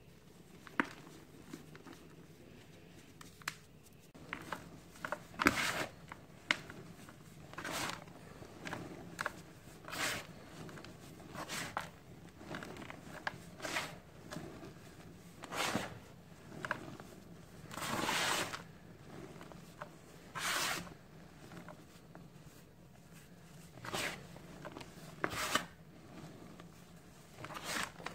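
Hands squeezing and crumbling clumps of dry powdered cement, making gritty crunching and rustling as the powder breaks up and pours back into the pile. It comes in uneven bursts every second or two, with small sharp crackles between them.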